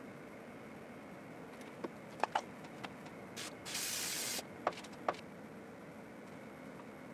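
A short puff and then a hissing spray of under a second from an aerosol of super glue activator, about three and a half seconds in, setting the dabs of super glue at once. A few light clicks and taps before and after.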